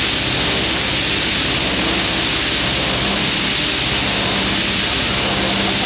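Double-spindle multi-blade ripsaw with 355 mm circular blades running steadily while a wooden board is fed through it on the roller conveyor: a constant low hum under a strong hiss.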